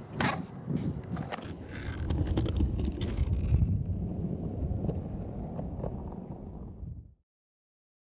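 Skateboard deck and wheels clacking on asphalt, several sharp clicks in the first second and a half, then a steady low rumble of wind on the microphone that cuts off suddenly about seven seconds in.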